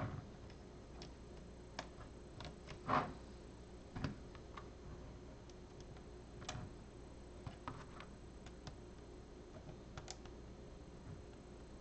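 Small plastic LEGO pieces clicking and tapping as they are handled and pressed onto a model, a scattering of faint, irregular clicks with the loudest about three seconds in.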